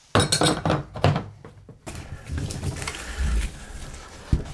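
Metal clinking and clanking as a steel C-frame bushing press tool is set onto a power steering rack housing, a quick run of clinks in the first couple of seconds. Softer scraping and handling noise follows, with one sharp click near the end.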